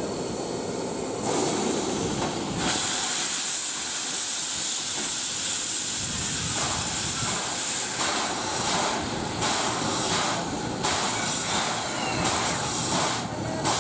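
Steam hissing from the standing C11-class tank locomotive dressed as Thomas the Tank Engine, venting steam. The hiss steps up louder about a second in and again near three seconds in, then flickers in strength.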